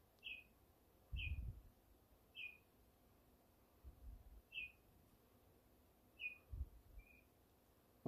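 American robin giving short, slightly falling chirps, about six spread over several seconds, with three dull low thumps in between as it knocks against the window glass.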